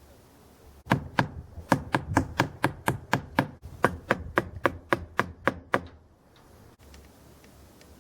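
Hammer striking wood in a rapid, even series of about twenty blows, roughly four a second, starting about a second in and stopping about five seconds later.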